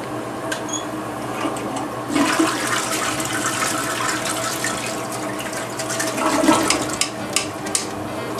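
Water rushing and running steadily, with a louder surge about two seconds in and another near six and a half seconds, and a few small clicks.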